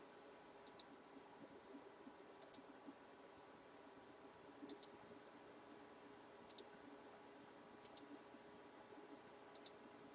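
Faint computer mouse clicks, six quick double-clicks about every two seconds, over near-silent room tone.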